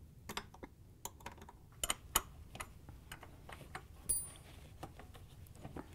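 Faint, irregular metal clicks and ticks of a 1/4-inch wrench turning out the screws on a refrigerator's water inlet valve bracket, with a brief high squeak about four seconds in.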